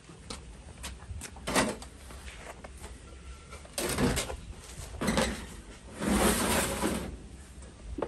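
Four short bursts of rough scraping or rustling noise with a few small clicks between them, the longest lasting about a second near the end.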